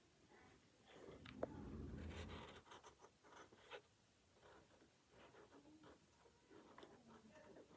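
Faint scratching of a drawing tool on paper in short strokes as an outline is drawn. About a second and a half in comes a louder, brief low rustle and thump with a sharp click.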